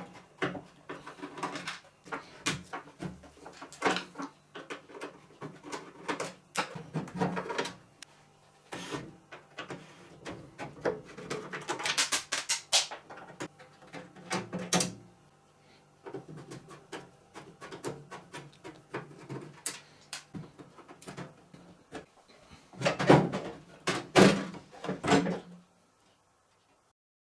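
Irregular knocks, clicks, scrapes and rattles of a microwave oven's metal casing and parts being handled during disassembly, loudest near the end, over a faint steady hum.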